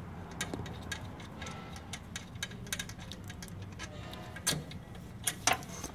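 Hand ratchet clicking in short strokes as a bolt is worked, irregular metallic ticks with a couple of sharper clinks near the end, over a low steady background hum.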